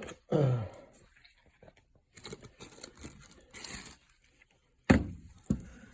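Rustling and crinkling as items are handled and moved about, then two sharp knocks a little over half a second apart near the end.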